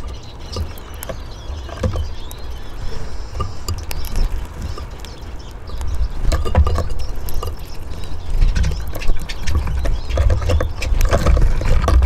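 Small birds at a wooden bird feeder, Eurasian siskins and bullfinches: scattered light clicks and taps from pecking and landing, busier in the second half, over a steady low rumble.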